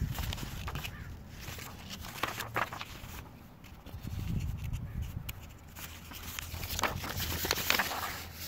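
A folded paper quick start guide rustling and crackling as it is opened out and handled, in bursts that are loudest near the end, over a low rumble.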